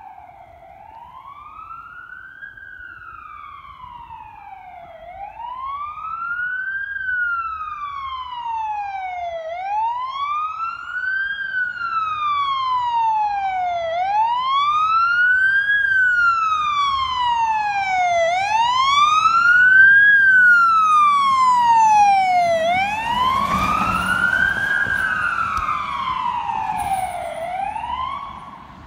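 Fire truck siren sounding a slow wail, its pitch rising and falling about every four and a half seconds. It grows steadily louder as the truck approaches and passes, then cuts off just before the end.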